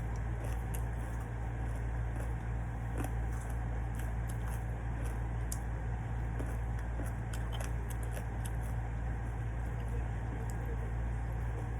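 Eating sounds close to the microphone: chewing with many small scattered clicks, over the steady low hum of an air conditioner.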